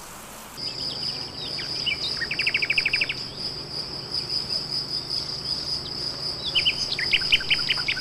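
An insect trilling steadily on one high note, with a bird's quick run of chirps about two seconds in and another string of chirps near the end.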